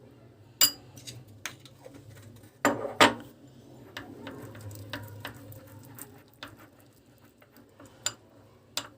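A spoon clicking and scraping against a bowl while stirring honey into a ground almond and white pepper paste. A few louder knocks come in the first few seconds, then lighter, irregular clicks.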